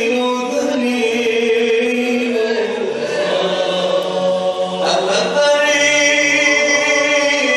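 Male voices of an inshad ensemble chanting an Arabic madih (Islamic devotional praise song) in long, held notes.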